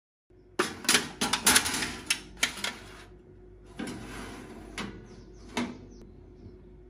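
A countertop electric oven being loaded: a quick run of metallic clicks and clatters from the wire rack and foil tray, a brief rustle a little later, then a couple of single clicks as the door is handled, over a faint steady hum.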